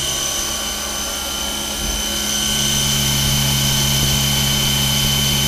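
Fadal 4020A CNC machining center running its spindle at speed: a steady high whine over a low machine hum, the hum growing a little louder about halfway through.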